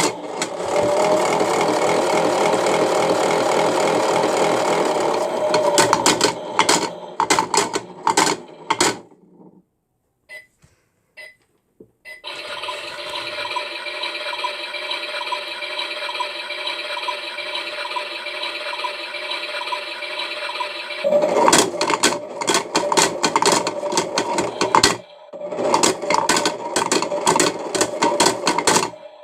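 Battery-powered toy washing machine running: its small motor whirs steadily, broken by stretches of rapid rattling and clicking, with a stop of a couple of seconds about a third of the way in before the motor starts up again.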